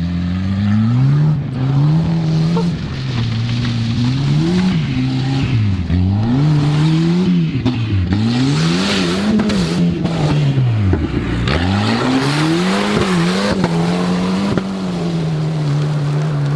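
Turbocharged Volvo 940's four-cylinder engine revving up and down again and again as the car is driven hard in sand, with the revs dropping deep about eleven seconds in and holding steady near the end. A rush of spinning tyres and thrown sand runs through the middle of the stretch.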